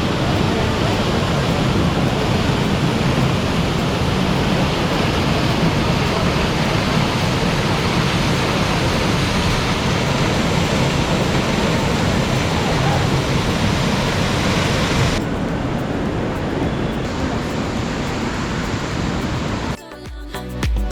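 Seven Sisters Waterfall roaring: a loud, steady rush of falling water. About three-quarters of the way through it becomes duller, and about a second before the end it cuts off and music starts.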